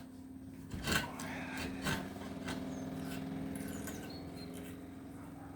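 Air-conditioning unit running with a steady, even hum, with a couple of light knocks about one and two seconds in.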